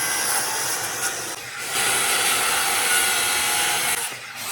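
A saw cutting through a wooden bed leg: a steady hissing rasp that breaks off briefly twice.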